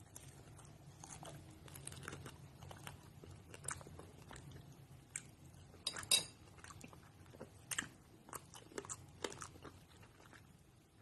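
Close-up crunching and chewing of candy-coated strawberries, the hard sugar shell cracking between the teeth in scattered crisp bites, the sharpest about six seconds in.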